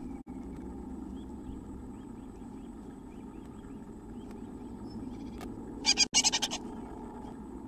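A great tit shuffling about on its moss-and-hair nest inside a wooden nest box, with a brief loud scuffling burst about six seconds in as the bird shifts. Under it are a steady low hum and faint high chirps, about three a second, in the middle.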